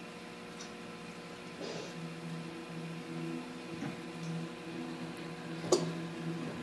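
Aquarium equipment humming steadily at a low pitch, with one sharp click near the end.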